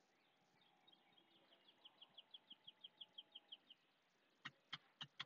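Faint bird trill: a quick run of about fifteen high chirps, about six a second, that stops after a few seconds. A few sharp clicks follow near the end.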